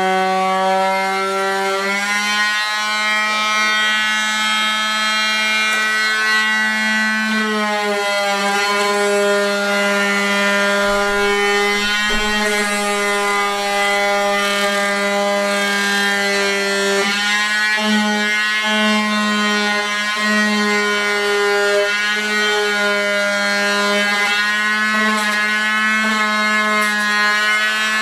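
Handheld electric router running without a break, a steady high whine whose pitch dips and recovers several times as it is pushed through the cut, rounding over the edge of a wooden panel.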